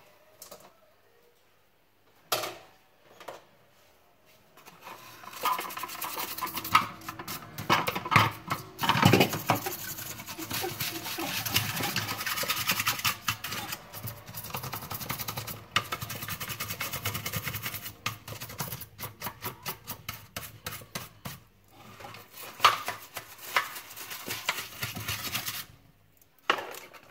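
Hand scraping and rubbing on the small fan impeller of an AEG CX7 cordless vacuum's motor, cleaning off the dirt that has built up on it and makes the motor run rough and loud. A few separate clicks come first, then a long stretch of dense scraping and clicking, with a run of quick, even strokes in the later part.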